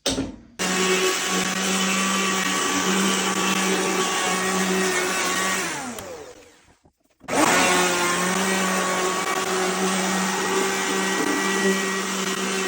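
Electric power tool running at a steady pitch; about six seconds in it winds down with falling pitch and stops, then after about a second it starts up again and runs on.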